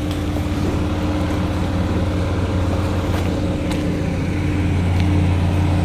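Steady low mechanical hum with a held tone from a running machine, aircraft or airport ground equipment, and a few light ticks over it.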